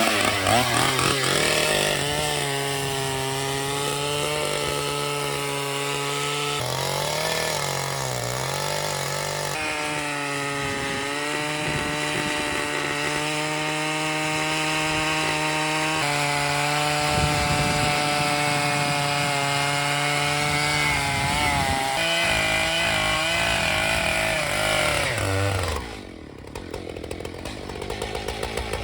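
Chainsaw mill: a chainsaw running at high steady revs as it rips lengthwise along a log, its note wavering briefly under changing load. About 26 s in, the engine sound drops off sharply.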